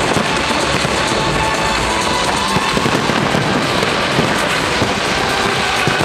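A fireworks display going off without pause: dense crackling and rapid pops from many shells and fountains at once, with music playing underneath.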